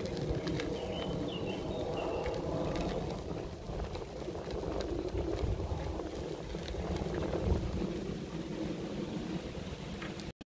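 Steady rumbling noise of wind and movement on the microphone while travelling along a dirt path, with scattered small ticks and crunches. A short bird chirp comes about a second in. The sound cuts off suddenly near the end.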